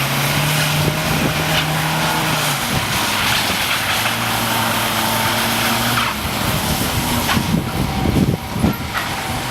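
Car engine running with a steady low hum that cuts out about two and a half seconds in, comes back, and fades out about six seconds in, over a steady hiss.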